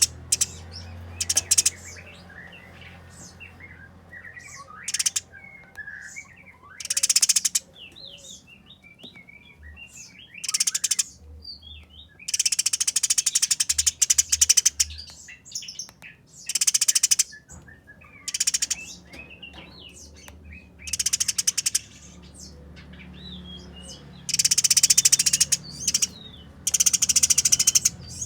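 Eurasian tree sparrows fighting: repeated bursts of harsh, very fast, high-pitched chattering, each up to about two seconds long, with softer scattered chirps between the bursts.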